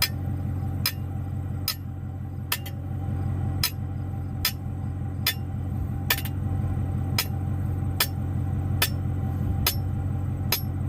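A 16-pound sledgehammer striking the top of a fence post over and over, driving it into the ground, about one blow a second. An engine runs steadily underneath.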